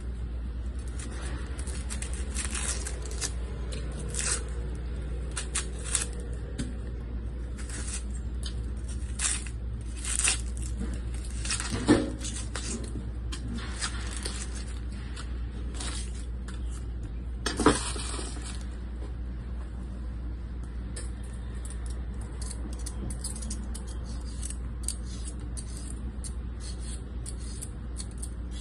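Kitchen knife peeling the dry, papery skin off an onion, then scraping the skin off a carrot at a wooden cutting board: scattered crackles and scrapes, with two sharper knocks about 12 and 18 seconds in, and quicker short scrapes near the end. A steady low hum runs underneath.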